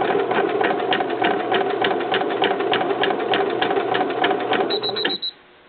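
Brother Pacesetter PE-100 embroidery machine stitching a letter pattern: a fast, even clatter of needle strokes over the motor's hum. About five seconds in, a quick run of high beeps sounds and the stitching stops.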